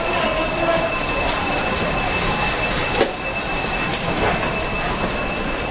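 Steady rushing, grinding noise of tsunami floodwater and wreckage, with a constant high-pitched whine over it and a few sharp knocks, the loudest about three seconds in.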